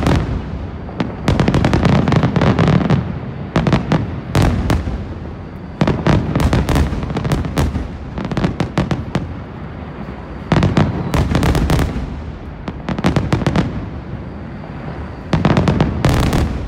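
Fireworks display: aerial shells bursting in loud volleys of bangs and crackles every few seconds, with a low rumble between the volleys.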